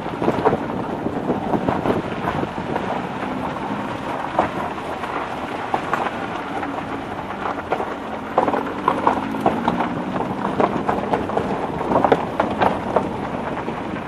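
A car driving slowly over a rough dirt and gravel road: a steady rumble of tyres on stones, with many sharp knocks and rattles as it jolts over the bumps.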